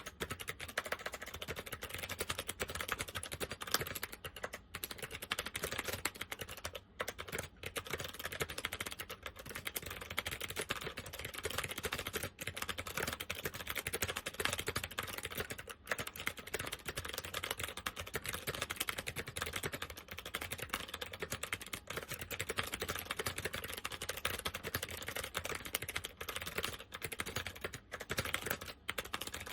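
Continuous fast typing on an SMK 2269 keyboard with second-generation SMK clicky switches, a dense run of keystroke clicks with only brief pauses. The switches are in worn, uncleaned condition.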